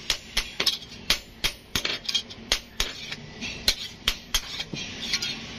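Sharp metal-on-metal taps and clinks from sickle blades being worked, irregular, about two or three strikes a second.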